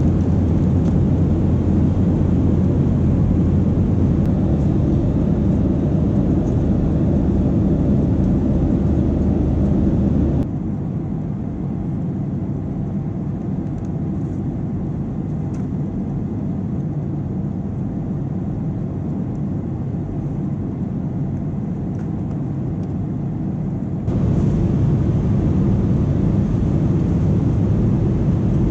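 Steady low drone of a Boeing 737-800's engines and airflow heard inside the passenger cabin in flight. It drops abruptly to a quieter, duller drone about a third of the way through and jumps back to the louder level near the end.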